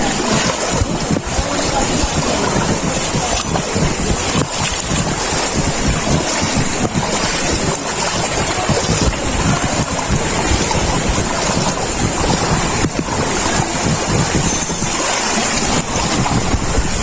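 Wind buffeting the microphone: a steady, loud rushing noise with a fluttering low rumble.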